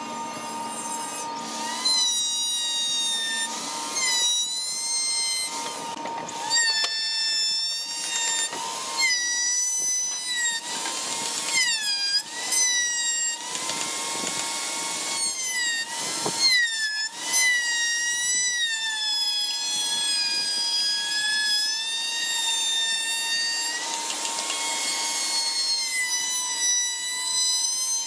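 Electric handheld plunge router cutting the wooden top of a carved stool. Its high motor whine repeatedly dips in pitch as the bit bites into the wood, then recovers between passes.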